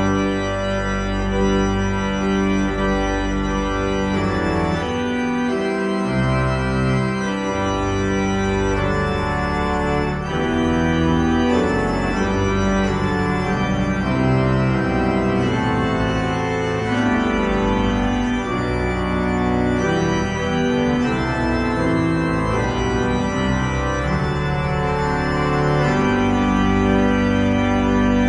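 Church organ playing a piece: full sustained chords that change every second or so over deep bass notes.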